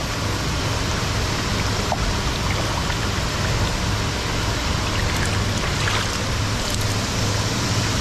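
Seawater running and bubbling in a foaming live-fish holding tank, a steady rushing noise with a low hum underneath.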